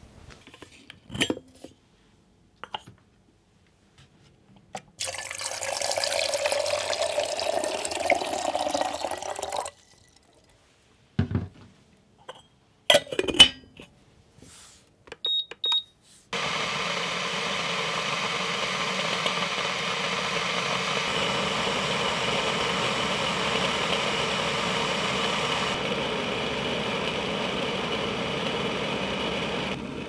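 A Hario electric gooseneck kettle heating water on its powered base, a steady hiss and rumble that starts about halfway through after a couple of short button beeps. Before it come a few seconds of running water and some knocks and clunks as the kettle is handled.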